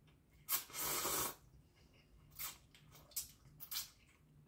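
A person slurping instant noodles: one long, noisy slurp about half a second in, followed by a few short wet mouth and chewing sounds.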